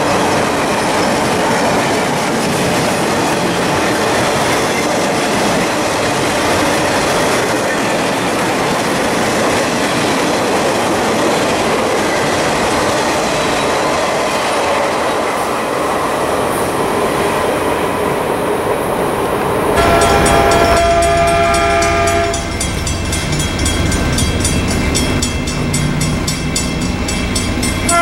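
Intermodal freight train of double-stack well cars rolling past, a steady loud rush of wheels on rail. About twenty seconds in it gives way to a Caltrain locomotive's horn sounding a chord of several notes, briefly once and again near the end, over a low rumble.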